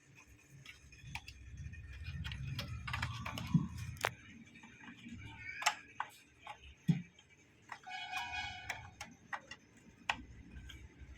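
Scattered light plastic clicks and taps as a laptop RAM module is handled and fitted into its memory slot. A short pitched tone sounds about eight seconds in.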